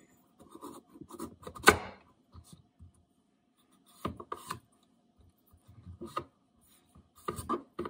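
Chef's knife cutting through a raw winter squash on a wooden cutting board: irregular crunching cuts and knocks of the blade against the board. The loudest is a sharp knock a little under two seconds in, with more cutting sounds around four, six and seven seconds in.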